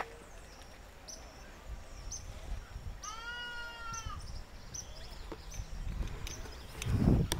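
A farm animal bleats once, a single call about a second long, about three seconds in. Faint high chirps repeat about twice a second, and a brief low rumble comes near the end.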